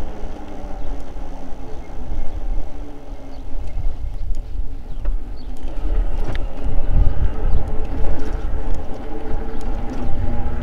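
Riding e-bike: wind buffeting the microphone and tyre rumble, with the electric motor whining in a stack of steady tones. The whine fades as the bike slows about a third of the way in, with a few light clicks, and comes back as it speeds up near the end.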